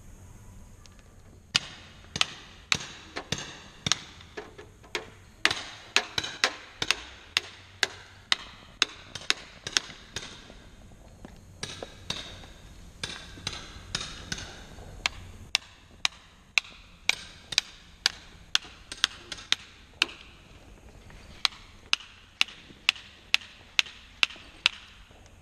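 Hand hammer striking a chisel into rock around exposed dinosaur bones, sharp blows about two a second with a few short pauses, starting about a second and a half in.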